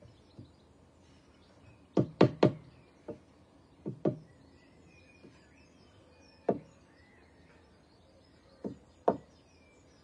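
Hammer blows on the timber wall frame: about nine sharp knocks in irregular groups, a quick cluster of three about two seconds in, then pairs and single strikes spread out.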